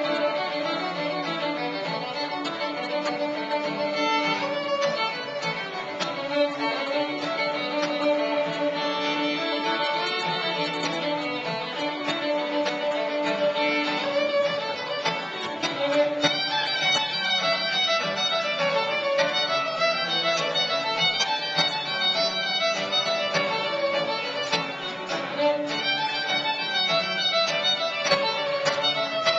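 Fiddle playing a lively run of short notes, with steel-string acoustic guitars strumming along as backing. About halfway through, the melody climbs into a higher part of the tune.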